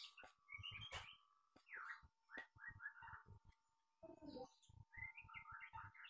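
Knife slicing through a block of tempe and tapping on a wooden cutting board in scattered soft strokes, while a small bird chirps in quick runs of short notes.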